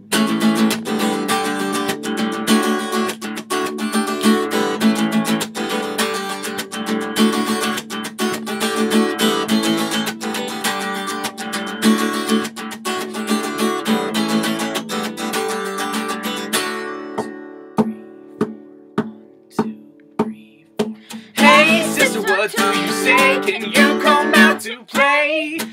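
Acoustic guitar strummed in a steady rhythm. About 17 seconds in it thins to a few single strums left ringing, and a woman's singing voice comes in about 21 seconds in.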